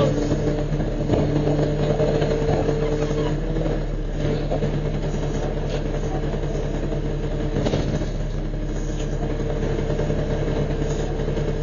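Garbage truck's engine idling steadily, heard from inside the cab, with a few light knocks.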